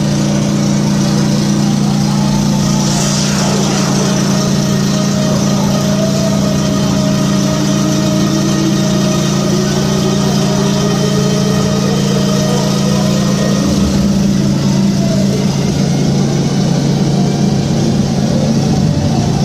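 Engine of a large passenger launch running steadily under way: a loud, even drone that holds the same pitch throughout.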